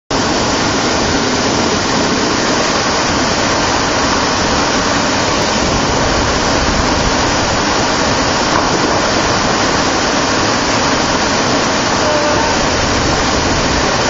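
Waterfall plunging into a pool: a loud, steady rush of falling water with no breaks.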